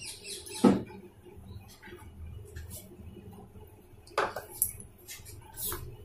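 Metal spoon clinking against drinking glasses while sugary lemon premix powder is spooned into glasses of water and stirred. One sharp clink comes about half a second in, and a quick cluster of clinks a little past four seconds, with lighter taps between.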